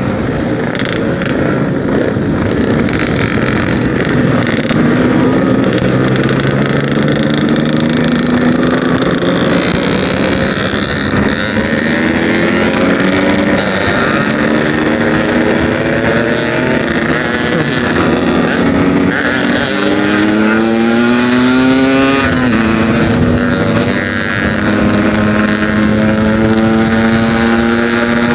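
Yamaha RX-King two-stroke single-cylinder motorcycle running through a packing-power aftermarket exhaust, accelerating through the gears: the engine note climbs in pitch several times, dropping back at each shift.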